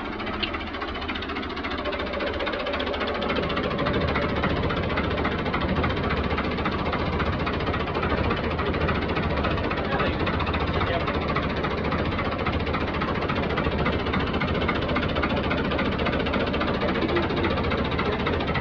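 Fiat 640 tractor's four-cylinder diesel engine idling steadily, growing louder over the first few seconds.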